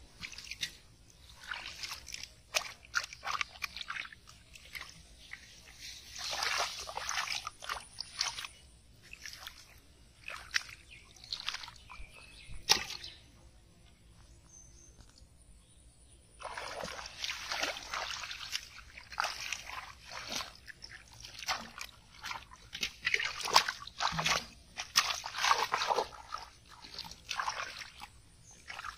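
Hands splashing and sloshing through shallow muddy water while grabbing for carp, in irregular bursts. One sharp knock stands out a little before halfway, followed by a quieter spell of a few seconds before the splashing picks up again.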